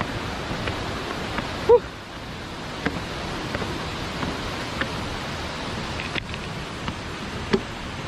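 Steady rush of the nearby waterfall, with scattered light knocks of footsteps on a wooden boardwalk and one short squeak about two seconds in.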